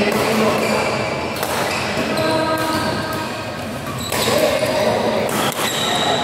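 Badminton doubles rally: several sharp racket hits on the shuttlecock, with players' footsteps on the court floor in between.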